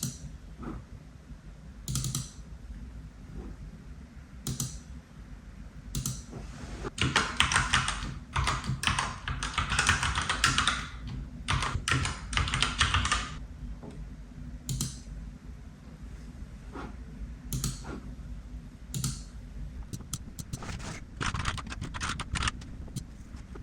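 Typing on a computer keyboard: scattered single key clicks, with a busier run of fast keystrokes in the middle, over a low steady hum.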